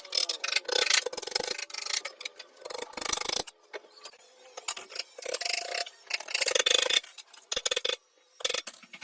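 Rapid, irregular clicking and tapping, with brief pauses partway through.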